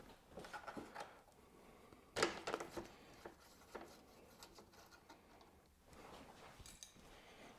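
Faint clicks and light taps of hand tools and small metal and plastic parts being handled on a motorcycle's front end, with a short run of sharper clicks about two seconds in.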